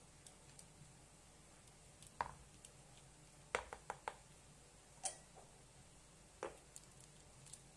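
Faint clicks and knocks, about half a dozen scattered through, of a ladle and a plastic funnel being handled over a basin of fruit ice mixture while plastic ice-pop bags are filled.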